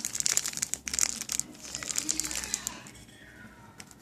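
A foam squishy toy being squeezed and handled close to the microphone: a dense run of crinkling, crackling noises that thins out and fades after about two and a half seconds.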